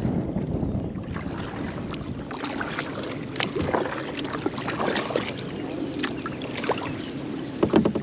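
Kayak paddle strokes: water splashing and dripping off the paddle blades in a run of short splashes, with a louder knock near the end.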